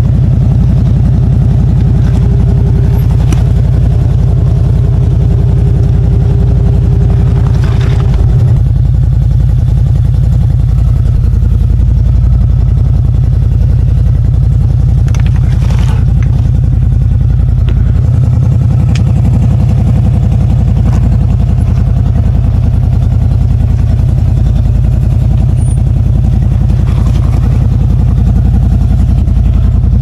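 CFMOTO ZFORCE 950 HO Sport side-by-side's engine running steadily as it drives. A steady hum sits over it for the first eight seconds or so, and there are a couple of brief knocks about eight and sixteen seconds in.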